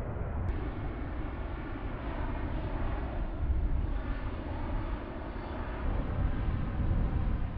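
Jet engines of a large military transport aircraft flying over at altitude, heard from the ground as a steady low rumble during a parachute drop.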